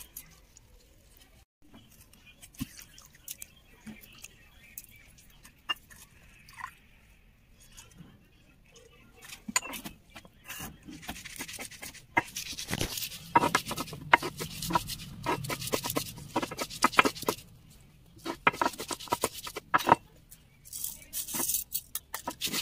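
A hand-held grinding stone scraping and rubbing over a flat stone slab (sil-batta) as mint leaves are ground, in repeated back-and-forth strokes starting about ten seconds in, with brief pauses. Before that there are only faint, sparse handling clicks.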